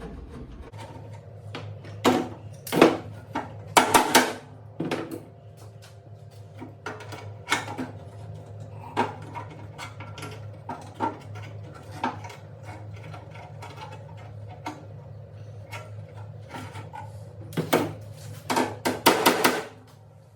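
Irregular metal knocks, taps and clanks from straightening and handling golf-cart parts, loudest in clusters about two and four seconds in and near the end, over a steady low hum.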